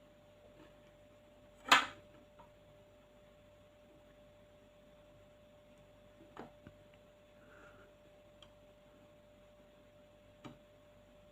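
A few sharp clicks of small parts of an airsoft VSR-10-type hop-up unit being handled and fitted together. The loudest comes near two seconds in, with fainter ones around the middle and near the end, over a faint steady hum.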